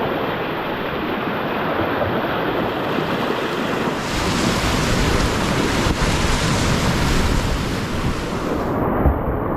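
Whitewater rapids of a river running high, rushing and splashing steadily around the boat, growing louder and hissier about four seconds in and turning duller near the end.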